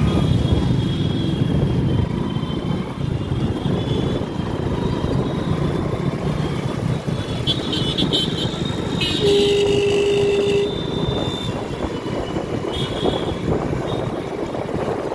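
Steady rumble of a moving scooter's engine and wind in city road traffic, with a vehicle horn sounding once for about a second and a half past the middle.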